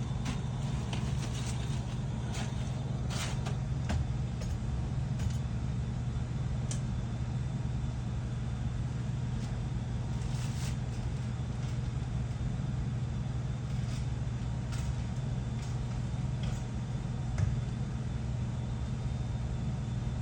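Steady low mechanical hum of HVAC equipment, with a few faint clicks and a brief hiss about halfway through.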